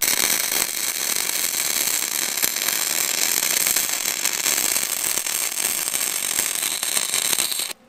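Wire-feed welding arc from a Vulcan OmniPro 220 running .035 wire, crackling steadily as a bead is laid on thick solid steel, then cutting off suddenly near the end.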